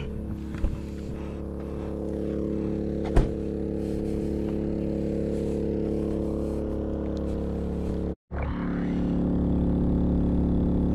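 Portable generator (a 3,500-watt Maxpeedingrods) running at a steady drone, louder as it is approached, with a car door shutting once about three seconds in.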